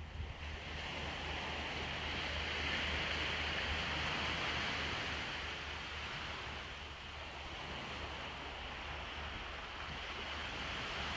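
Sea surf washing onto the shore of a bay, a steady rush of water that swells over the first few seconds, eases around the middle and builds again, over a steady low rumble.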